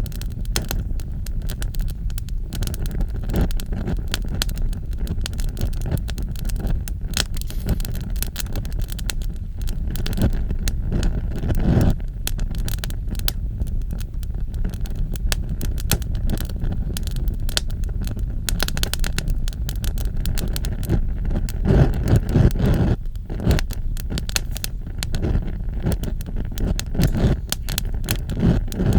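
Fire burning: a steady low rumble under dense, irregular crackling, with a few louder clusters of crackles about two-thirds of the way through.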